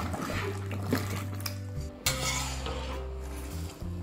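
A metal spatula scraping and clinking against a large metal cooking pan as a heap of whole apples is stirred, with a louder scrape about two seconds in. Background music with held bass notes plays under it.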